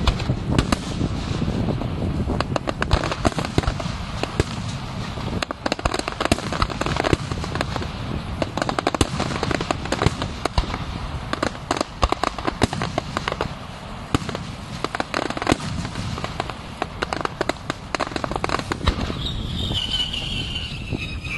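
Fireworks display: a dense, irregular run of bangs and crackling shell bursts. Near the end, a high whistle falls steadily in pitch.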